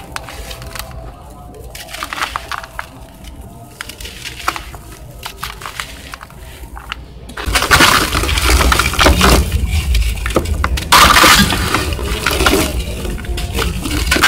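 Hands crumbling and squeezing clumps of dry red dirt: soft, scattered crackles as the clumps break and trickle apart. About 7.5 s in, a much louder, dense gritty crunching takes over as a sandy cement chunk is crushed and grit pours down into a plastic bucket.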